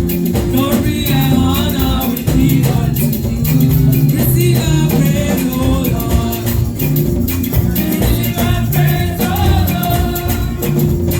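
Live church praise band playing upbeat music with a steady beat, shaker-like percussion and guitar, with some singing.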